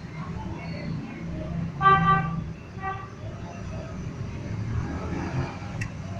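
A vehicle horn honks twice, a longer blast about two seconds in and a short one about a second later, over a steady low traffic rumble.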